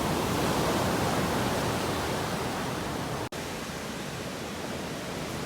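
Ocean surf washing onto the beach: a steady rushing noise, cut off for an instant about three seconds in and then resuming a little quieter.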